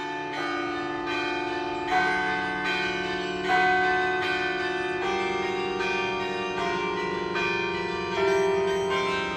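Carillon bells playing a slow melody: a new bell is struck about every half second to a second, and each rings on under the next, so the notes overlap.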